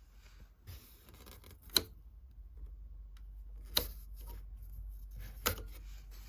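Three sharp clicks about two seconds apart, over a faint low hum.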